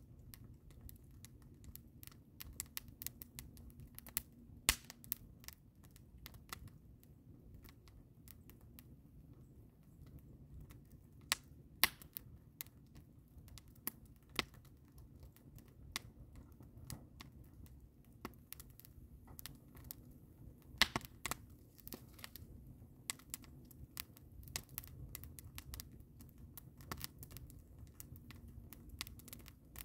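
Wood fire crackling: irregular sharp pops and snaps from burning logs and green conifer boughs, with a few louder pops now and then.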